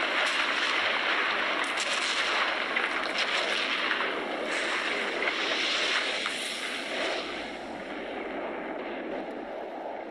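Baking soda and vinegar foam fizzing: a steady hiss with faint crackling of bursting bubbles as the carbon dioxide escapes, easing off over the last few seconds.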